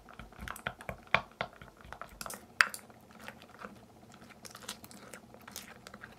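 A stirring stick working a thickening slime mixture in a glass bowl: irregular wet squelches and clicks as it scrapes and taps the glass, with one sharper knock about two and a half seconds in.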